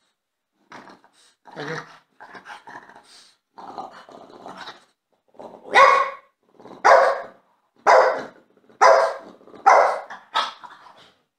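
French bulldog growling and grumbling, then barking loudly about once a second, six barks with the last one short. It is demanding attention.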